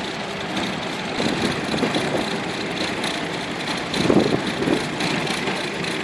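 Vintage tractor engine running steadily as it pulls a plough through the field, with a brief louder swell about four seconds in.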